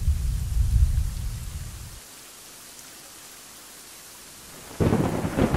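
Thunderstorm sound effect: a low rumble of thunder that dies away after about two seconds, a faint steady hiss of rain, then a sudden loud burst of thunder and rain near the end.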